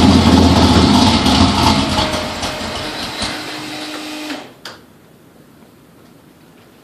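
Engine running loudly, then fading over a couple of seconds and cutting off abruptly about four and a half seconds in, followed by a single click.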